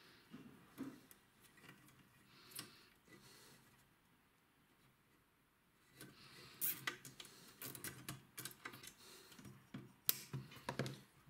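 Plastic cable ties being drawn tight around a wiring harness inside a metal instrument chassis: faint, scattered small clicks, growing busier from about halfway through.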